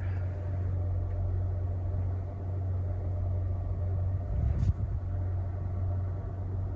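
Steady low hum inside a Mercedes GLA 250's cabin with the car running, with a brief low thump and a soft click about two-thirds of the way through.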